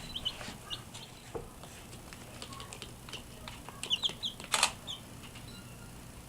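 Birds chirping with many short, high, scattered chirps, and a brief loud rustle about four and a half seconds in.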